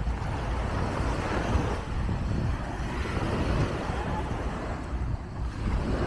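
Wind buffeting the microphone over a steady wash of sea surf, with no distinct sound standing out.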